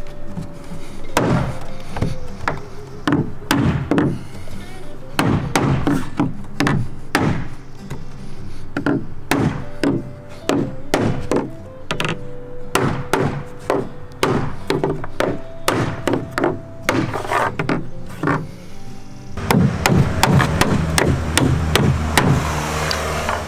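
Claw hammer driving headed face nails into charred cypress siding, many sharp wooden strikes in quick irregular runs, setting the nails to tighten boards that have moved. Background music plays underneath.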